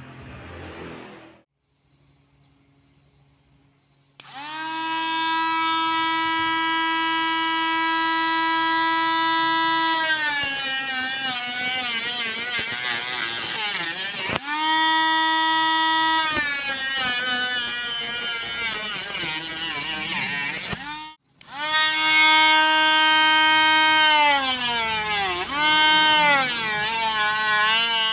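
Homemade cordless mini grinder with a small RS380 DC motor on a single 3.7 V lithium cell, starting with a steady high whine about four seconds in. Each time the spinning bit is pressed into a plastic strip its pitch sags and a hissing grind joins in, which happens three times. The motor is switched off briefly twice before stopping near the end.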